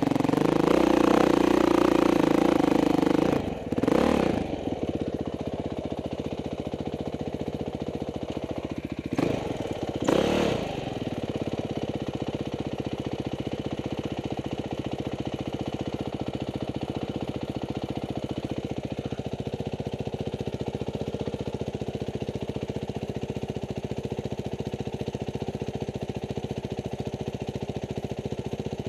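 Dirt bike engine running loud under throttle, then cut back about three and a half seconds in. The throttle is blipped briefly twice, and the engine then settles into a steady idle.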